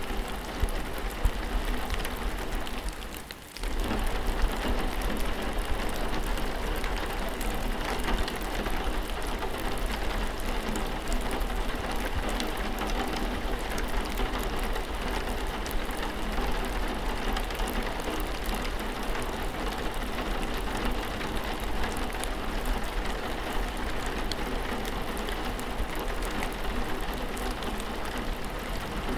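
Steady rainfall, an even wash of rain with many small drop ticks over it. The sound dips briefly about three seconds in, then carries on unchanged.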